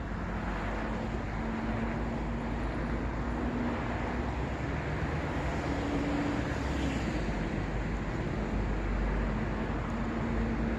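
Steady city road traffic: a continuous wash of car tyre and engine noise, with a low hum underneath. A vehicle passes about two-thirds of the way through, its hiss swelling briefly.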